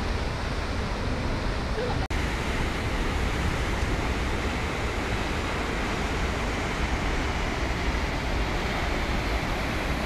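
Steady rush of the Kivach waterfall and the white-water rapids below it, an even wash of noise. The sound cuts out for an instant about two seconds in.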